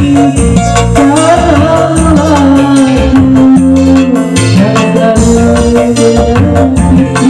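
A loud song with heavy bass and a gliding vocal-style melody line, played through a big parade sound system.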